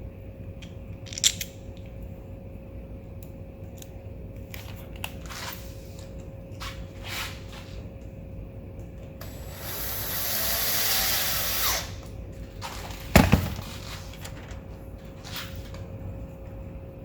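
Hand tools and the small metal parts of a Mirrycle bicycle mirror being handled and tightened during reassembly: scattered light clicks, a steady rasping noise of about two and a half seconds past the middle, and a loud sharp knock shortly after.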